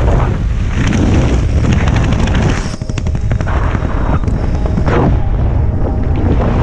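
Loud wind buffeting on the camera's microphone during a tandem skydive, as the main parachute canopy opens and inflates overhead. The rumbling gusts come in irregular surges, with a brief dip just before three seconds in.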